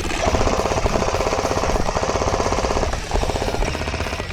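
G&G MG42 airsoft electric machine gun firing on full auto: a fast, even mechanical rattle in one long burst, a short break about three seconds in, then firing again.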